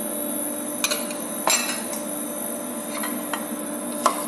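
Metal spoon clinking against a stainless steel bowl and stock pot as garlic and diced onion are spooned into the pot: about four sharp clinks, the loudest about a second and a half in, over a steady hum.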